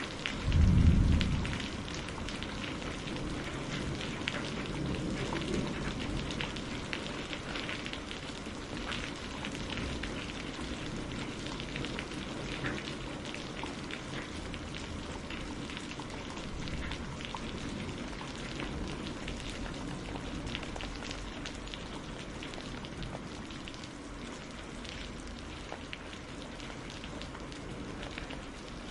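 Steady rain on a greenhouse roof, with many individual drops ticking throughout. About a second in comes one short, loud low rumble of thunder.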